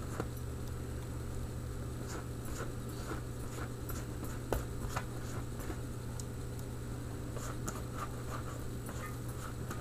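Faint soft dabbing and scratching of a silicone pastry brush spreading melted butter over baked bread rolls, with a small tick about four and a half seconds in, over a steady low hum.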